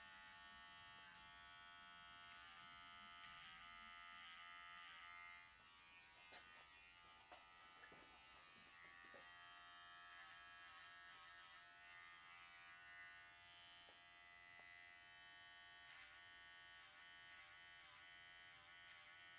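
Electric hair trimmer buzzing steadily as it edges the hairline, faint, with short ticks as the blade meets the hair. The tone weakens about five seconds in and comes back strongly a few seconds later.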